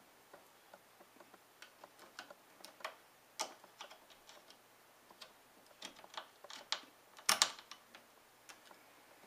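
A precision screwdriver and small screws clicking and scraping on a laptop hard-drive enclosure as the screws are driven in: irregular light ticks, with a louder clatter about seven seconds in.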